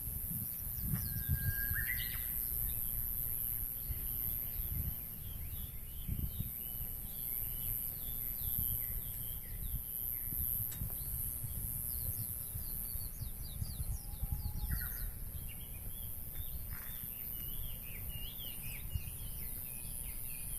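Several birds chirping with short, repeated calls, over a gusty low rumble of wind on the microphone and a steady high hiss.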